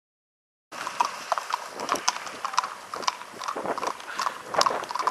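Horses' hooves clip-clopping on a wet road, an irregular clatter of hoofbeats from more than one horse, starting under a second in after silence.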